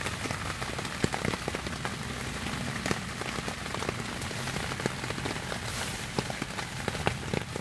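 Steady rain, not heavy, beating on the thin fabric of a French F1 military pup tent, heard from inside, with many separate drop hits.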